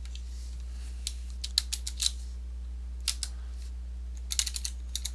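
Computer keyboard keystrokes in a few short, scattered runs over a steady low hum.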